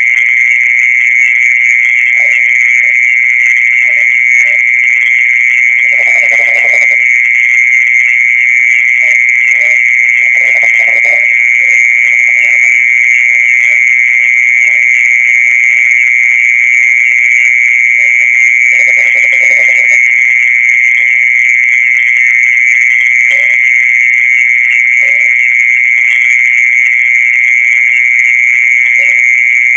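Continuous insect trill held at one steady high pitch without a break, the sound popularly sold as earthworm 'song' in Indonesia, typical of a mole cricket calling from its burrow. Short, low croaking calls break in underneath now and then.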